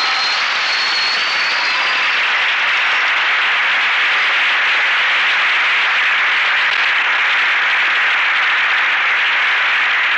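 Studio audience applauding: a dense, steady clapping that holds at an even level. A few faint high cheers ride on it in the first couple of seconds and then fade.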